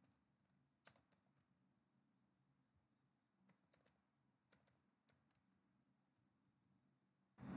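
Faint, scattered keystrokes on a computer keyboard as values are typed in, in small clusters with pauses between. Just before the end a much louder burst of rushing noise begins.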